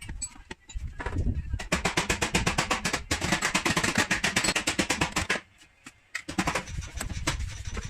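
Rapid, evenly paced tapping, about ten strikes a second, typical of tapping down a dent with a paintless-dent-repair knockdown tool on the car's body panel. It comes in two runs with a short pause about five and a half seconds in.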